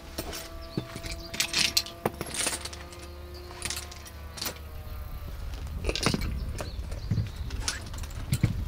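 Metal hand tools and small parts clinking and rattling as they are picked up and set down, a dozen or so sharp clicks scattered through, over a steady low rumble. A faint steady hum sounds for the first three seconds or so.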